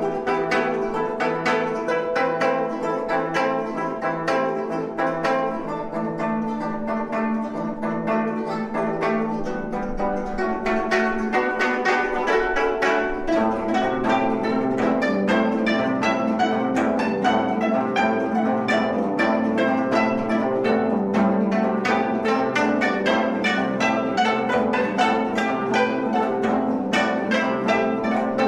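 Four gayageums (Korean zithers) playing together: a fast, driving ensemble passage of rapid plucked notes, with lower bass notes joining about halfway through.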